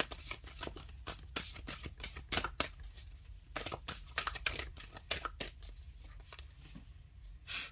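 Oracle cards being shuffled by hand, a run of quick irregular card clicks and slaps.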